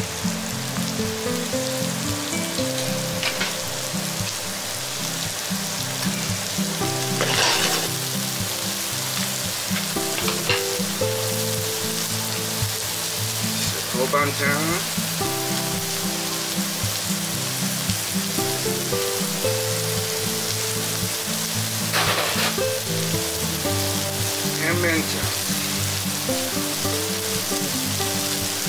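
Chopped long leek, garlic and dried chili sizzling steadily in hot oil in a wok, with background music over it.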